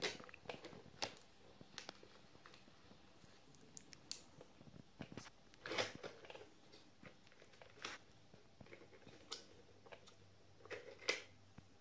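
Small plastic clicks and taps of a children's toy makeup set being handled: flower-shaped compacts and little applicators knocked and picked up, a few irregular clicks every couple of seconds.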